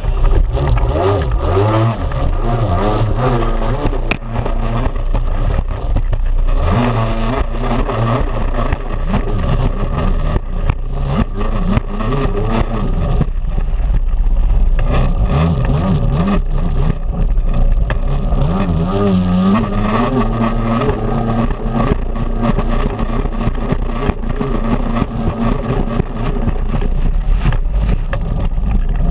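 Stand-up jet ski engine heard close up from a camera on the craft, revving and running hard with its pitch rising and falling as the throttle is worked, over the rush of water and spray.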